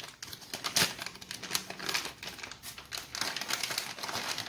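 Plastic bag of potato starch crinkling and rustling in irregular bursts as it is handled and opened.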